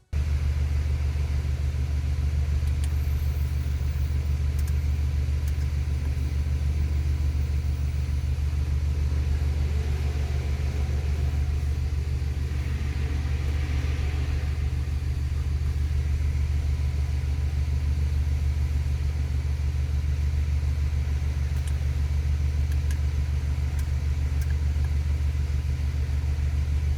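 Car engine idling: a steady low rumble that holds unchanged throughout.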